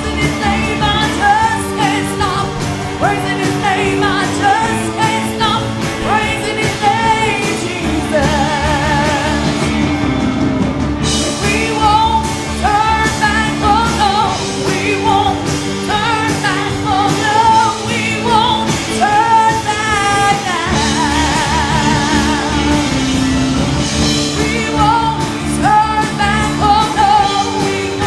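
Live gospel worship music: voices singing with heavy vibrato over a band with steady bass and drums.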